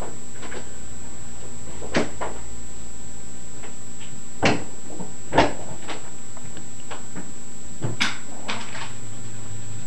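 A few sharp knocks and clacks at irregular gaps, the loudest about halfway through, over a steady hiss with a thin high whine.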